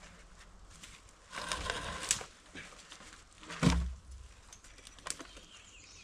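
A spell of rustling and scraping, then a single heavy thump a little past the middle.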